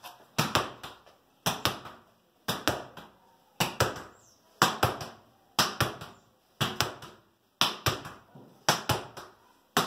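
A ball is struck with an open palm and driven against a wall in a volleyball hitting drill. Roughly ten strokes come about once a second, each a quick cluster of two or three knocks: the slap of the hand, and the ball hitting the wall and floor and bouncing back.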